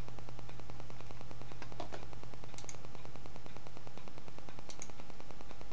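Steady low electrical hum and hiss of the recording, with a few faint computer mouse clicks about two, two and a half, and five seconds in. Part of the hum cuts out about four seconds in.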